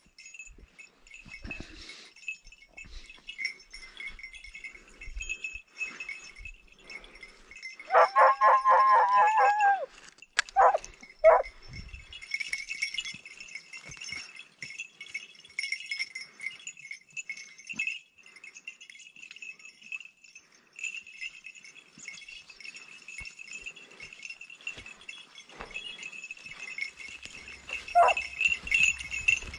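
Hunting hounds giving tongue on a hare's scent: one long drawn-out bay about eight seconds in, two short yelps just after, and another short yelp near the end. A steady high jingling runs underneath.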